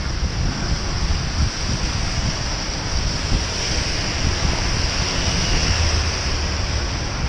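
Steady rushing noise of wind buffeting a bicycle-mounted camera's microphone while riding, mixed with the hiss of tyres on a wet road.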